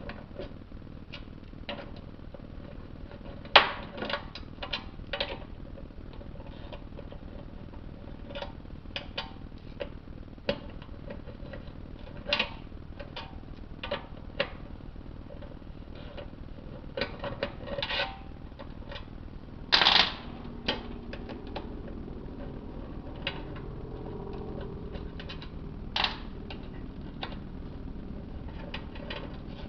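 Irregular metallic clicks and clinks of hand tools and small bolts as the 10 mm pan bolts are taken out of a transmission, with a few louder knocks, the loudest about three and a half seconds and twenty seconds in.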